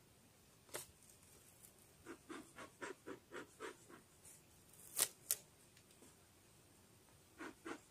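Hands working over an open beehive: a run of short soft scrapes and taps, then two sharp clicks about five seconds in, the loudest of them.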